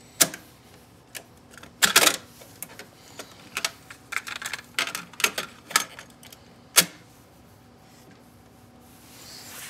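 Irregular sharp clicks and brief crinkling from a clear plastic bag of RCA plugs being handled, loudest as single clicks near the start and about seven seconds in, then quiet for the last couple of seconds.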